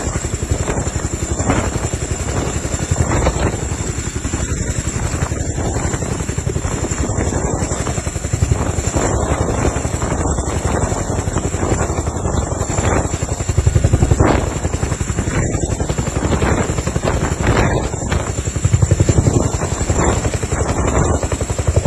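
Helicopter running at close range: the rotor's fast, even chop of blade beats under a steady high whine, swelling louder a couple of times.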